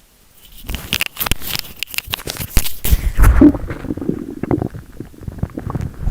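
Hungry stomach growling: loud gurgling rumbles with crackly pops, starting about half a second in and loudest a little past the middle.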